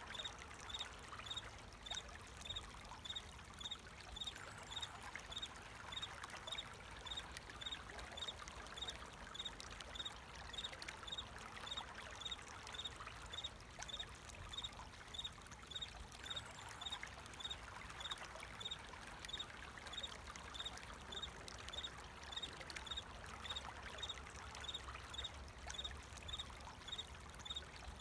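Water flowing in a steady trickle, with a cricket chirping at an even, regular pace over it.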